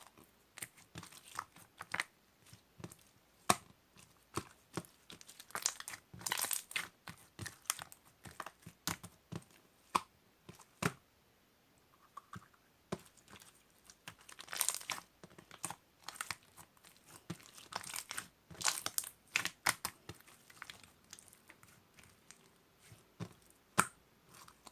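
Irregular crinkling and tearing of paper or plastic in short bursts, with scattered sharp clicks.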